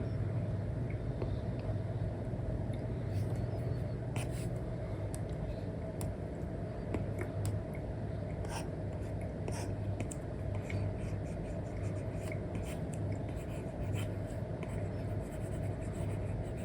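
Stylus nib scratching and tapping on a paper-like screen film: Apple Pencil strokes on an iPad, in short irregular strokes and ticks over a steady low hum.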